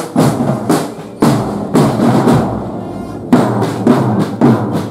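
Military marching band's drum line playing a march: snare drums and bass drums beating about two strokes a second. The beat thins briefly a little past halfway, then strong hits come back.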